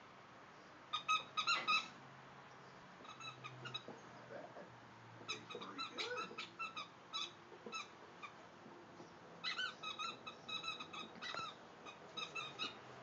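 A squeaky dog toy squeezed over and over in a boxer's jaws: quick runs of short, high squeaks in four bursts, the first, about a second in, the loudest.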